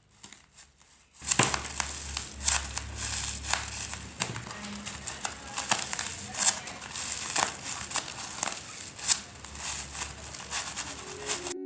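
Crinkling and crackling of craft materials being handled and crumpled, with many sharp clicks. It starts about a second in and cuts off suddenly near the end.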